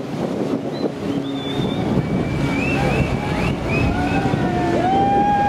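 Wind buffeting the microphone and choppy river water rushing past a small boat, with scattered short, high gliding calls over the rushing and a stronger held one near the end.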